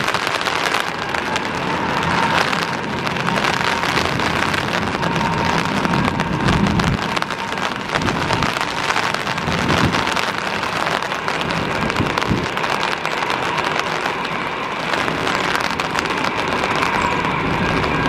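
Heavy rain hissing steadily, mixed with the jet engines of an IndiGo Airbus A320 running at takeoff power as it accelerates down a waterlogged runway toward rotation.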